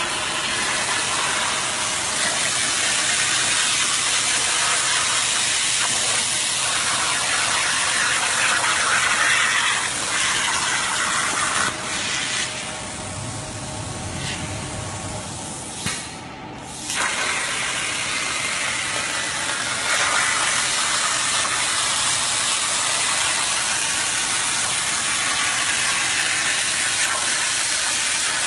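CNC machine running with a steady spraying hiss. It dips quieter for a few seconds past the middle, with a faint steady tone, then comes back at full level.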